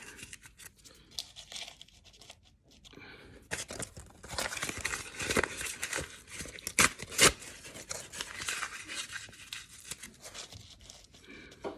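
A shopping bag being torn and crumpled by hand, in irregular crackly rustles with a few sharp snaps around the middle, as pieces are pushed into gaps in brickwork.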